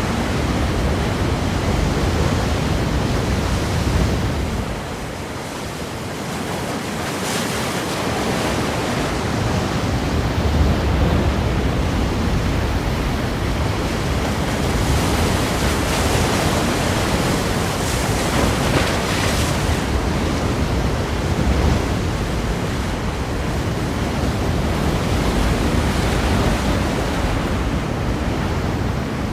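Ocean waves breaking against rocks: a continuous wash of surf that eases for a moment about five seconds in, then swells again.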